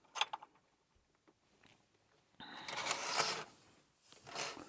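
Lock picks being handled while he changes tools: a few light clicks at the start, then a longer rustling scrape about two and a half seconds in and a shorter one near the end.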